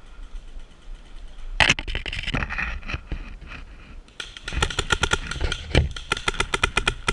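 Paintball markers firing: a sharp crack about one and a half seconds in and a few scattered shots, then from about four seconds a rapid, even string of shots, roughly eight a second.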